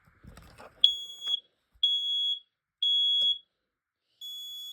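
X-Sense smoke alarm sounding its test alarm: three loud, high-pitched beeps about half a second each, evenly spaced, with a quieter beep from another alarm starting near the end.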